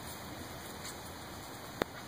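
Steady hiss of outdoor background noise, with one sharp click near the end.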